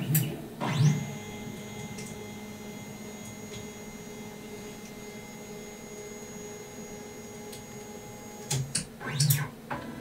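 Stepper motors of a 3018 CNC router whining as the machine runs its homing cycle. About a second in, a rising tone marks an axis speeding up, and a steady whine follows for several seconds. Near the end come a few short whirring moves as it finds its limit switches and backs off them.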